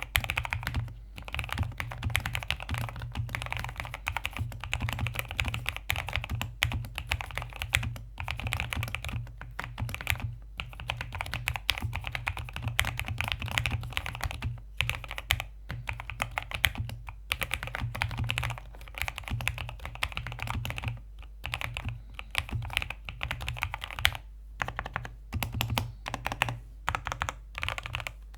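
Continuous fast typing on a mechanical keyboard with Gateron Milky Yellow linear switches under thick PBT keycaps in an Ajazz AK820 case: a dense stream of key clacks with a few brief pauses.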